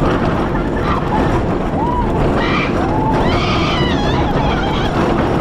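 Vekoma suspended swinging coaster in motion: a steady rush of wind and rumbling train and track while it swings through the turns. Riders' voices cry out a few times around the middle.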